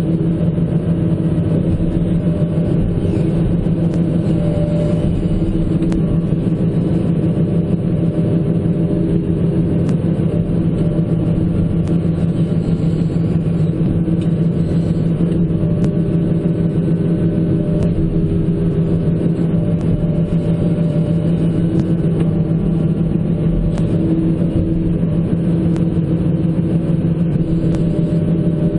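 Diesel engine of a John Deere 160C LC hydraulic excavator running steadily at working revs while the machine is worked through its controls.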